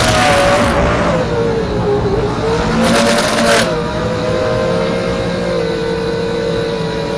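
FPV racing quadcopter's motors and propellers whining, the pitch rising and falling with the throttle. Twice, at the start and about three seconds in, the pitch goes up with a louder burst of rushing noise.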